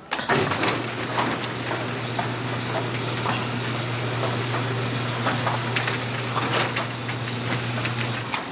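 Motorized overhead garage door opening: a steady motor hum with clicks and rattles from the moving door. It starts suddenly and stops shortly before the end.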